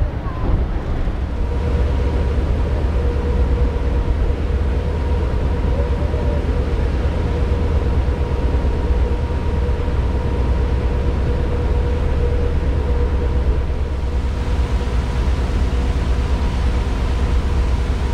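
Steady low rumble of the RoRo ferry MV Confederation's engines and machinery under way, with a thin steady hum that joins about a second and a half in.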